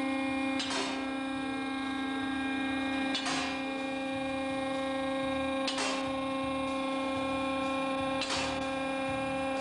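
A steady electronic drone, one held pitched tone with overtones, cut by a short whoosh four times, about every two and a half seconds. It is the sound of a TV series' opening titles.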